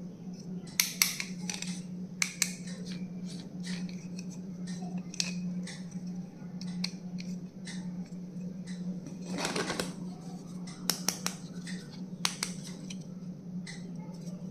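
Stationery and its plastic packaging being handled and opened: a scattered run of sharp clicks and snips, with a longer scraping rustle about two-thirds of the way through, over a steady low hum.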